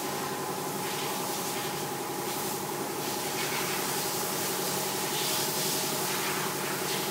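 Steady hissing noise over a constant machine hum made of a few fixed tones.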